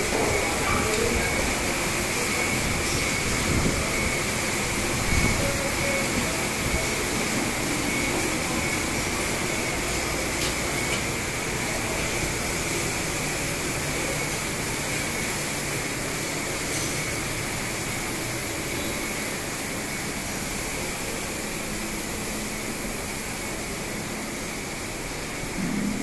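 Steady factory machinery noise: an even hiss with a constant high-pitched whine, and a few brief knocks in the first several seconds.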